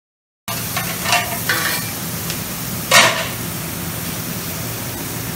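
Food sizzling on a hot flat-top griddle at a Mongolian barbecue station, with metal spatulas scraping and clanking against the steel; the loudest is a sharp clank about three seconds in. The sound starts suddenly about half a second in.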